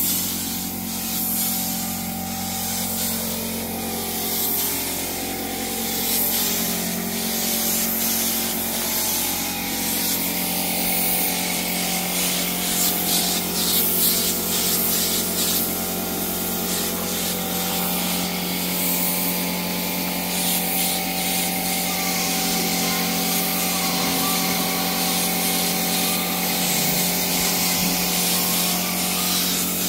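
Suction-feed air spray gun hissing steadily as it sprays sealer, with a steady low hum underneath.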